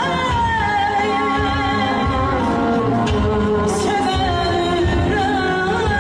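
Woman singing Azerbaijani mugham, a long, wavering, ornamented vocal line over band accompaniment with a pulsing low beat.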